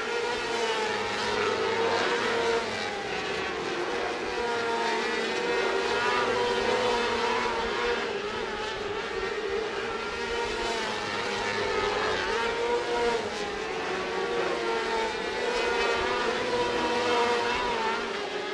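Winged 600cc micro sprint cars' motorcycle engines running at speed as they circle a dirt oval. It is a steady engine note that rises and falls a little as the cars work through the turns.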